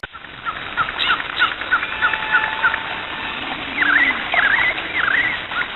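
Several birds chirping: many short chirps and quick swooping calls over a steady hiss, busiest in the second half.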